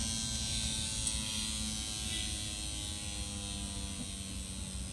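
Steady electric-sounding buzz from the Mahindra XUV500's engine bay, still running after the engine is switched off and slowly fading. It is the fault noise the mechanic later ties to the vacuum pipe and solenoid on the EGR line.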